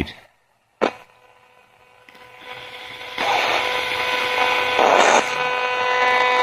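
A click just under a second in, then the static of a 20-125 spirit box radio comes in about two seconds in and grows louder, with steady whining tones running through the hiss and a brief louder burst of hiss about five seconds in.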